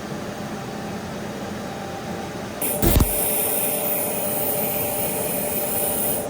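Automated pipe-welding machine running with a steady hum. About two and a half seconds in, a high hiss starts and holds, with a single thump just after it.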